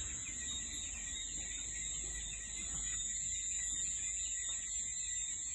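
Crickets singing at night in a continuous, high-pitched chorus.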